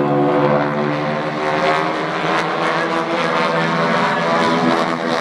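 Radial engines of a formation of North American T-6 Texan propeller planes droning steadily overhead, with several tones that slowly drift in pitch.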